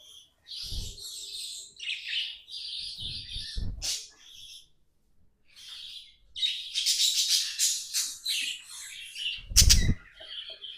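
Budgerigars chattering and warbling, with rapid high chirps in clusters, busiest in the second half. A few dull thumps mix in, the loudest just before the end.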